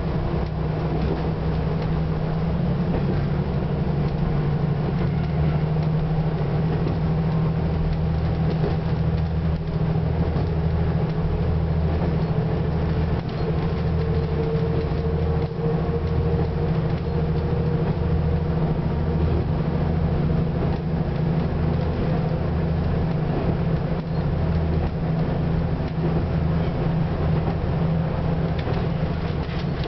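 Diesel railcar running along the line, heard from inside the train: a steady engine drone with wheel noise on the rails, and a deeper throb that comes and goes about once a second.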